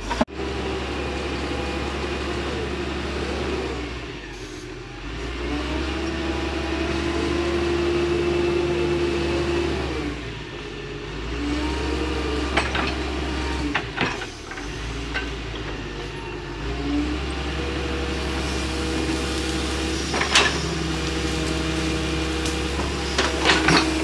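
Excavator's diesel engine running steadily, its pitch rising and falling as it works under hydraulic load, with a few sharp knocks from the machine working.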